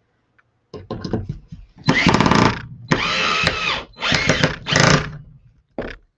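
Cordless drill driving a Phillips wood screw through a metal bottle opener into a wooden board. The trigger is pulled in a series of short, loud bursts, with the longest runs near the middle.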